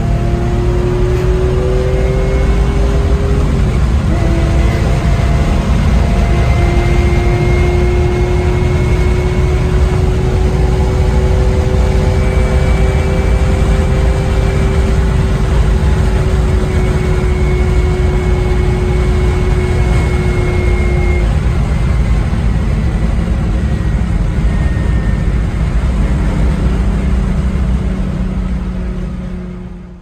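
1978 Porsche 911 SC's air-cooled 3.0-litre flat-six, fitted with 964 cams, headers and a SuperTrapp exhaust, running under load at a steady cruise, heard from inside the cabin with tyre and wind noise; it fades out near the end.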